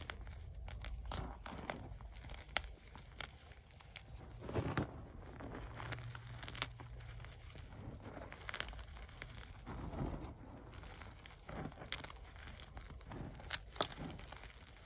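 Hands squeezing and crushing a heap of crumbled gym chalk blocks: soft, powdery crunching with irregular sharp crackles, and a couple of heavier squeezes partway through.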